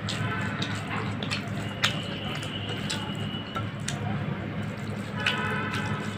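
Close-miked wet squishing and sticky clicks of a hand mixing rice with curry on a plate, with chewing mouth sounds, over a low steady hum.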